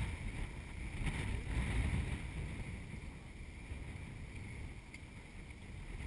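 Wind buffeting an outdoor camera microphone: an uneven low rumbling noise that swells about a second and a half in, then eases.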